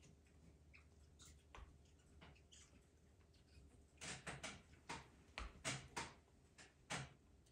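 A dog gnawing a hard rubber chew toy: a few faint clicks at first, then a quick run of louder short clicks of teeth on the rubber from about four seconds in to about seven.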